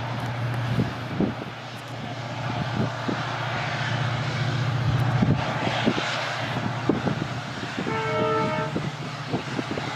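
A WDP4D diesel locomotive's two-stroke EMD 710 engine running with a steady low drone as it hauls a long passenger train, the noise of the train swelling midway. About eight seconds in, the locomotive's horn sounds one short blast.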